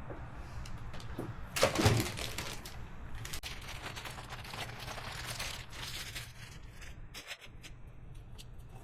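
Handling noise from air-intake parts being worked on: scattered clicks and crinkly rustling, with a louder rustling burst about two seconds in, over a low steady hum.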